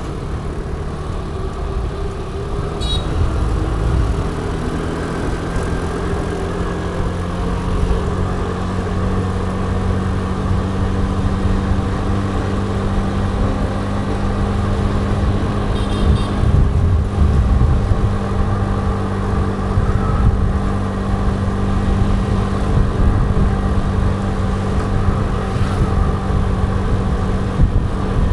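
Motor scooter engine running steadily with a constant low hum, amid road traffic noise. A few brief high chirps come about 3 seconds in and again about halfway.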